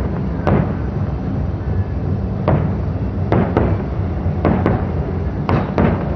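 Aerial firework shells bursting: about eight sharp bangs at irregular intervals, some in quick pairs, over a steady low rumble.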